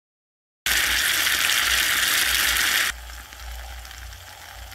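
Oil sizzling with chopped chili and garlic in a miniature pot. It starts suddenly about half a second in, is loud for about two seconds, then drops to a quieter sizzle.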